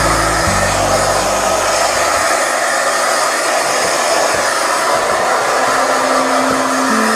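Conair 1875-watt handheld hair dryer running steadily, blowing air onto a dog's damp coat to dry it.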